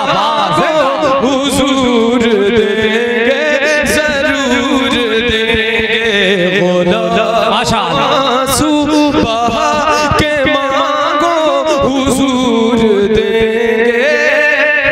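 A man singing a naat unaccompanied into a microphone: one voice in long drawn-out notes that glide up and down, with no clear words.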